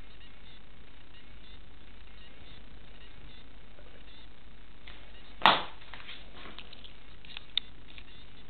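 Steady background hiss, broken about five and a half seconds in by one sharp thump that dies away quickly, followed by a few faint clicks and a single sharper tick near the end.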